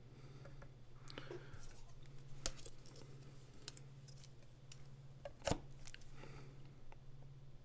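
A few faint clicks and light taps, the loudest about five and a half seconds in, over a steady low hum: a stylus and a plastic French curve template being handled against a Cintiq pen display to redraw a line.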